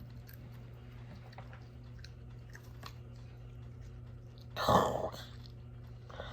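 Person chewing and crunching a seasoned roasted cricket, faint small crackling clicks, with one brief loud sound about three-quarters of the way in.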